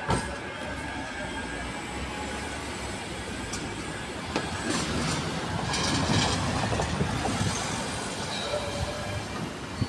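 Manchester Metrolink M5000 tram running away along street-embedded rails, its wheels and motors heard steadily under city street noise, with a thin wheel squeal fading out in the first second.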